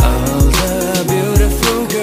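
Background music: a song with a heavy bass beat about twice a second.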